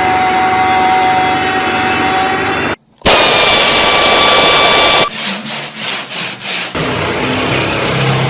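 Workshop tool noise in short, hard-cut clips: a steady stretch, a very loud burst about three seconds in, then a run of rhythmic strokes at about four a second.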